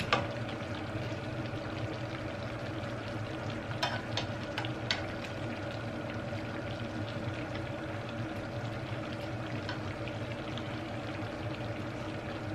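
Coconut-milk seafood stew simmering in a pan on a hob, a steady bubbling with a low hum underneath. A metal spoon clicks against the pan and plate a few times, near the start and around the middle.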